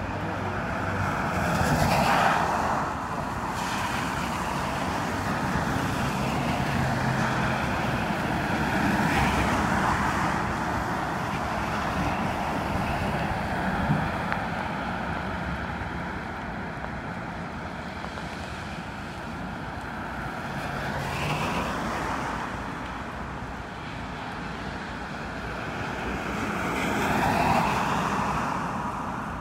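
Road traffic on a wet street: cars and a city bus passing one after another, their tyres hissing on the wet asphalt. Several passes swell up and fade away over a constant background rush.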